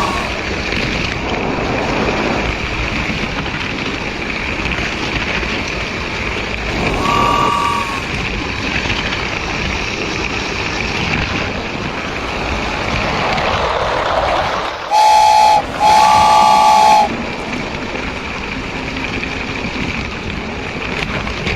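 Train running with a steady rumble. A short high toot comes about seven seconds in, then two loud horn blasts past the middle, the second longer than the first.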